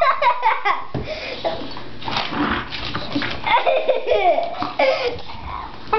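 A person laughing and giggling in bursts, at the start and again from about three and a half to five seconds in, over the quieter scuffling and mouthing of two dogs play-biting.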